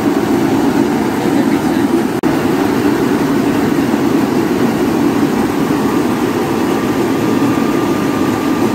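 Tractor-driven rice mill running under load while milling paddy: a steady, dense machine noise of the driving engine and the hulling machinery. The sound cuts out for an instant about two seconds in, and a faint thin whine joins in past the middle.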